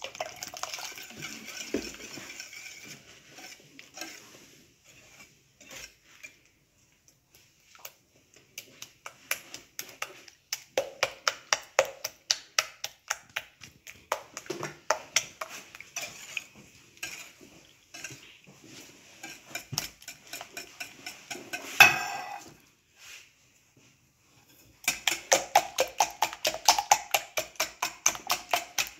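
Wire whisk beating a runny egg, sugar and milk batter in a glass bowl, its wires clicking quickly against the bowl. Milk pours in with a hiss at the start, there is one sharp knock on the bowl a little over twenty seconds in, and after a short pause the whisking comes back faster and denser.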